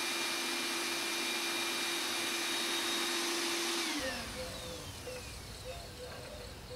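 Bee vacuum's motor running with a steady whine as it sucks a honeybee swarm off a tree limb, then switched off about four seconds in, its pitch falling as it winds down.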